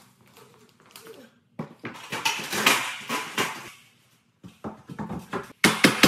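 Clattering and knocking from carpentry work as lumber is handled and fixed at the door header, with a short pause in the middle. Near the end, electronic music with a steady drum-machine beat starts.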